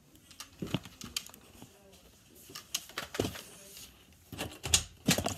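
Scattered clicks, knocks and clothing rustle from handling a phone and a Nerf blaster at close range, with a cluster of louder knocks near the end.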